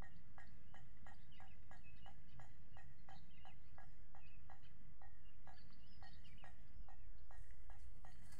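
An animal call repeated as short, even pulses, about three a second, with scattered bird chirps above it and a low wind rumble underneath.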